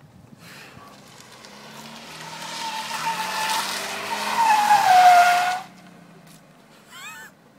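VW Golf sliding sideways on plastic lunch trays, the trays scraping and squealing on the asphalt over its running engine. The sound grows louder as the car approaches, squeals with a falling pitch near the end, and cuts off suddenly about five and a half seconds in.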